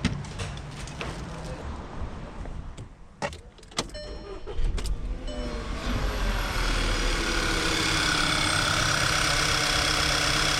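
Scattered clicks and knocks, then the 2010 VW Tiguan's 2.0L TSI turbocharged four-cylinder is cranked and starts about four and a half seconds in, settling into a steady idle.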